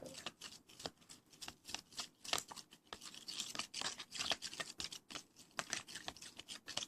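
Slime mixture being stirred in a container: irregular scraping and clicking of the stirrer, busiest around the middle.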